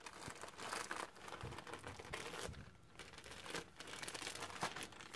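Faint, intermittent crinkling and rustling of gift wrapping as a small present is pulled open by hand, with a few light ticks.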